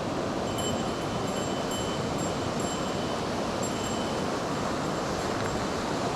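Mountain stream water rushing steadily, an even, constant noise.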